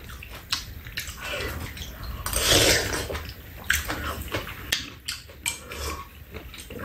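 People slurping bean sprout soup from metal spoons, loudest about two and a half seconds in, with light clicks of the spoons against the bowls.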